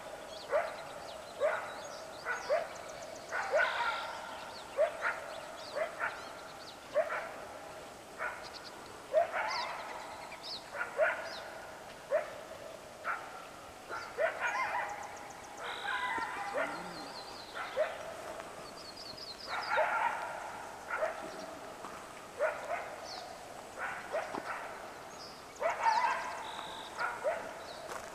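Coyotes yipping and barking again and again in short rising yelps, at times several voices overlapping in a chorus, with a few faint bird chirps above them.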